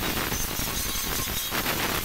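Electric angle grinder with an abrasive disc grinding rust off a steel shovel blade, a steady abrasive noise.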